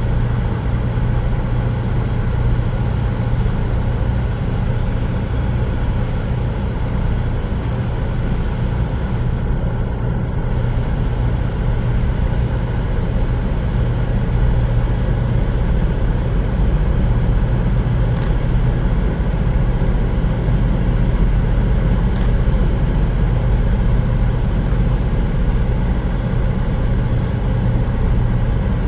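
Steady, unchanging engine drone with a deep hum and a stack of higher overtones, and two faint clicks in the second half.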